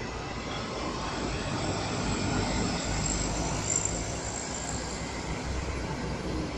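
Heavy diesel trucks passing close by on a highway, engine and tyre noise swelling as a box truck towing a trailer goes past, loudest about halfway through.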